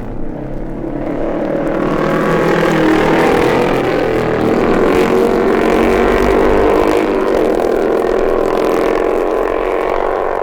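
Two racing motorcycles of the 1958 Isle of Man Senior TT passing at race speed, their engines growing louder over the first two seconds and easing off slowly towards the end. Old mono race recording played back from a vinyl record.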